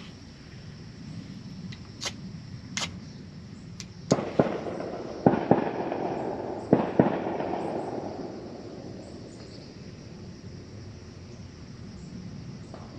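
Gunshots from hunters shooting at ducks: two lighter shots, then three quick pairs of louder shots, each rolling away in a long echo.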